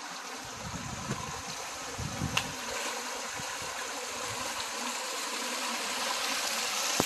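Shallow creek water running over rock and spilling down a small cascade: a steady rushing hiss. A few low thumps come in the first couple of seconds, with a sharp click about two and a half seconds in.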